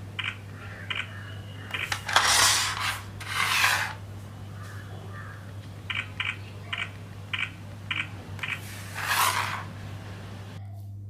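Vivo S1 Pro smartphone camera shutter sound, switched back on, playing as a short noisy snap three times. Light ticks come before the first two snaps and in a run of six near the middle, and a steady low hum runs underneath.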